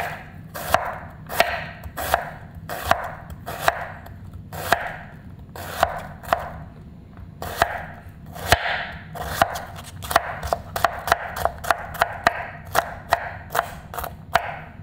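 Kitchen knife chopping onion into small dice on a cutting board. Sharp knocks of the blade on the board, each with a short slicing hiss, come about one to two a second, then quicken into a faster run of chops in the second half.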